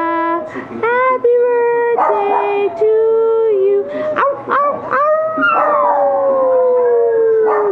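Small white long-haired dog howling with its nose raised, in long drawn-out notes that slide up and down and end in one long falling note. A second voice howls along at a different pitch.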